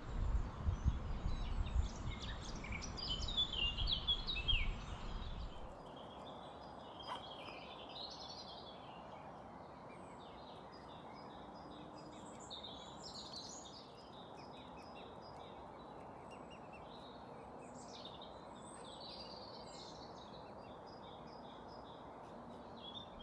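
Songbirds singing and chirping, with several overlapping short phrases. Wind or handling rumbles on the microphone for about the first six seconds, then stops, leaving only the birdsong over a quiet background.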